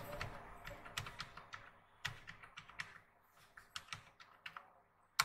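Computer keyboard typing: a quick, irregular run of faint key clicks, with one louder keystroke near the end.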